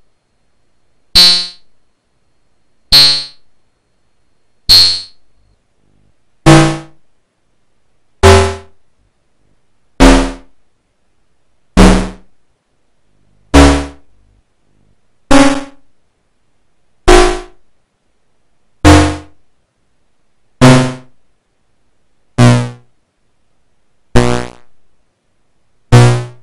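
Breadboarded CMOS XOR-logic synthesizer playing metallic, cowbell-like percussion hits, each with a sharp attack and a quick decay, about one every 1.8 seconds. The timbre changes from hit to hit as a potentiometer is turned, from bright and high in the first few hits to deeper, with more bass, later on.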